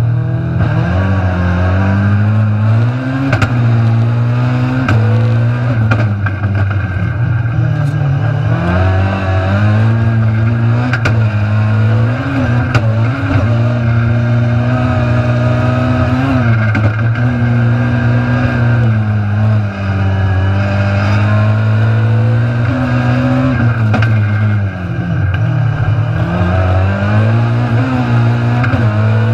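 Ford Fiesta Cosworth touring car's engine heard from inside the cabin under race load, its pitch climbing and dropping over and over as it is driven through the gears and corners. A few sharp clicks cut through now and then.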